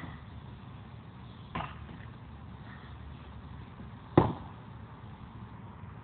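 Blows from a long-handled tool striking a Storm bowling ball: a lighter hit about a second and a half in, then a loud, sharp hit about four seconds in. The ball's hard, cement-like core is not breaking under the blows.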